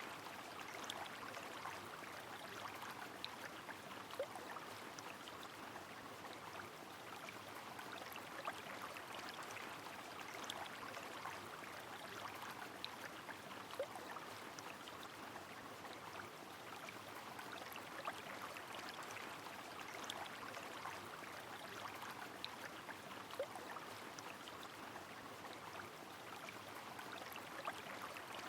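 Steady rain over a flowing river, an even watery hiss with scattered drops and a few louder single drips.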